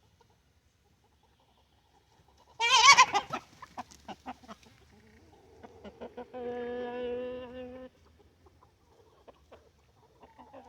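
Chickens in a hen house: a loud, wavering squawk about two and a half seconds in, then a run of short clucks. Later a single drawn-out call holds one steady pitch for about a second and a half.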